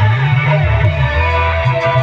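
Loud music played through a portable cart-mounted sound system: an electric guitar melody over a strong, shifting bass line.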